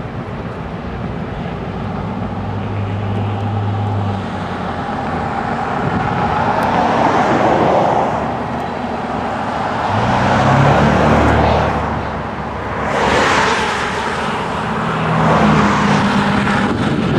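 Vehicle engines humming, with repeated swells of passing noise a few seconds apart.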